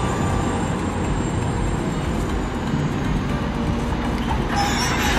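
Heavy diesel machinery running steadily, a dense low engine noise that holds level throughout.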